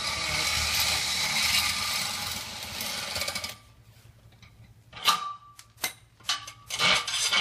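Cordless drill running steadily under load for about three and a half seconds, turning an all-thread rod at the bottom of the side panel to back it out, then stopping. A few sharp metallic clicks follow as the rod and drill are handled.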